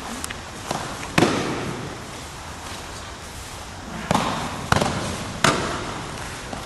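Aikido breakfalls: bodies and hands slapping down onto the foam mat as attackers are thrown. About six sharp slaps, the loudest about a second in and three more close together in the second half, echoing in a large hall.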